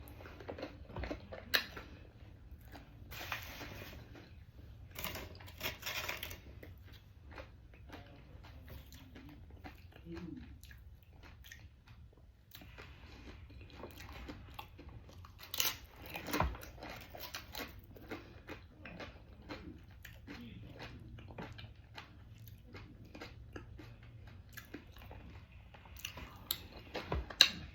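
Close-miked chewing and biting of crunchy food eaten with queso dip: soft wet chewing with irregular sharp crunches, the loudest about 16 seconds in and again near the end.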